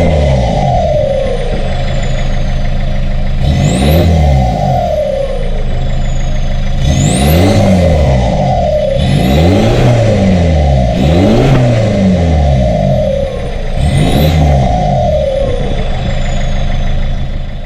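BMW E46 320d's four-cylinder turbodiesel, straight-piped with the muffler removed, revved up and let fall about six times, a few seconds apart, over a steady idle. A high whistle rises with each rev and falls away after it. The sound cuts off suddenly at the end.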